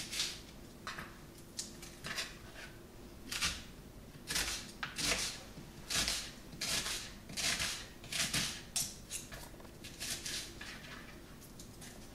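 A kitchen knife slicing through a raw onion onto a plastic chopping board: a crisp cut and tap repeated over a dozen times, about one stroke every half second to a second, unevenly spaced.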